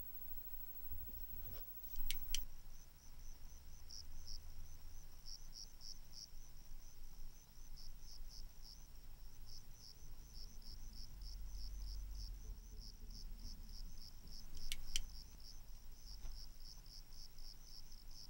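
Crickets chirping in a steady run of short, rapid pulses, over a low hum. Two sharp clicks cut through, one about two seconds in and one about fifteen seconds in.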